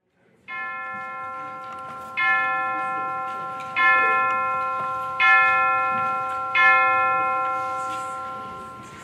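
A bell struck five times, about a second and a half apart. Each stroke rings on with a bright cluster of tones and fades slowly. The first stroke is softer than the four that follow.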